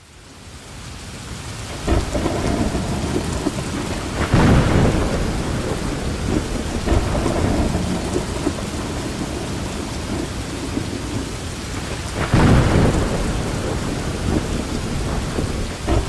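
Heavy rain falling steadily, fading in over the first couple of seconds, with two louder low rumbles of thunder, one about four seconds in and one near the end.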